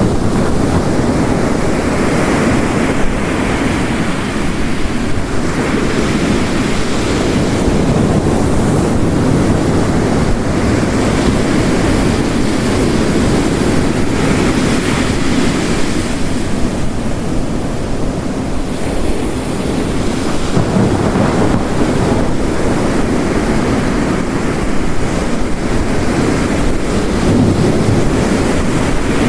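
Ocean waves crashing on a shore, layered with heavy rain: a dense, unbroken rush of water that swells and eases in slow surges.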